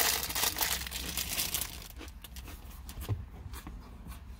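Crunchy Chezzeles cheese snack rings being chewed up close, with dense loud crunching for the first second and a half, then softer irregular crunching. The snack is hard.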